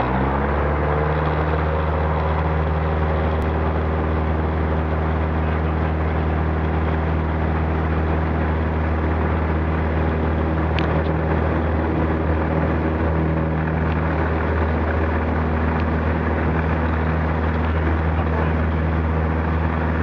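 Single-engine light aircraft's piston engine and propeller heard inside the cockpit, rising to full takeoff power in the first second, then running steadily at full power through the takeoff roll.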